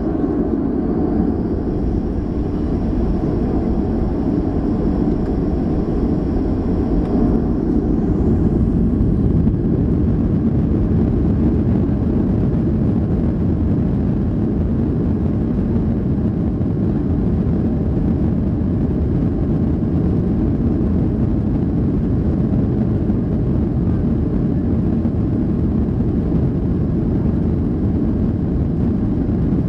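Boeing 737's CFM56 turbofan engines running at high thrust for take-off. A high whine holds, then rises in pitch about eight seconds in and fades out, leaving a steady, loud, low rumble.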